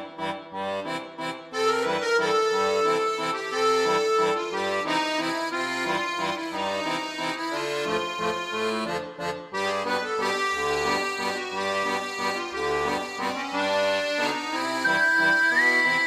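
Background music with a lively accordion-like reed melody over chords and a moving bass line.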